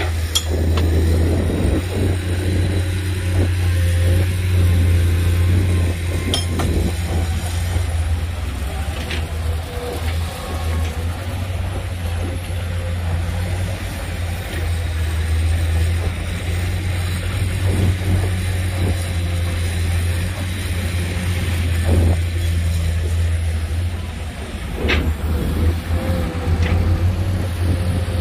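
Heavy Hyundai dump truck's diesel engine running with a steady low drone while it raises its tipper bed and dumps a load of sand, with a few short knocks.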